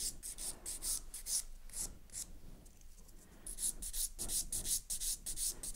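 Hand nail file rasping across an acrylic nail in quick, short strokes, about three a second, filing off the gel top coat. The strokes thin out for a moment about halfway through.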